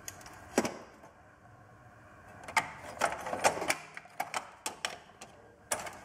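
Steel spanners clinking and clattering as a hand rummages through a blue metal toolbox. There is a single clank about half a second in as the lid opens, then a run of sharp clinks from about two and a half seconds on.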